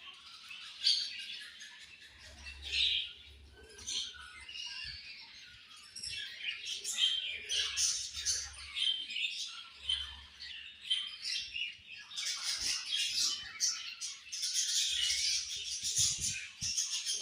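A flock of budgerigars chattering, a dense mix of many overlapping chirps and warbles, busier in the second half, with a few soft thumps near the end.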